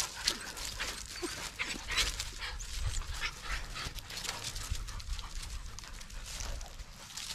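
Puppies treeing a squirrel: panting with a couple of short whines about a second in, over a fast patter of scratchy rustles as they scrabble at the tree bark and through dry leaves.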